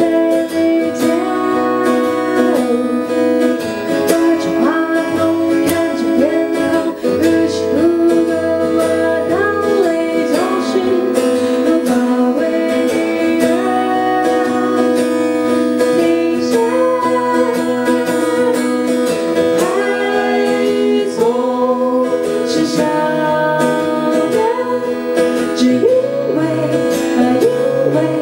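A woman singing a song to an acoustic guitar accompaniment.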